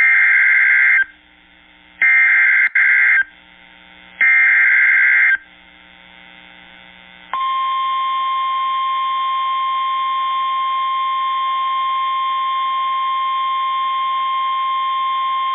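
NOAA Weather Radio Emergency Alert System activation: three loud bursts of SAME digital header data, each about a second long and two seconds apart, then about seven seconds in the steady 1050 Hz warning alarm tone, one long unbroken beep. The signal announces a newly issued severe thunderstorm warning.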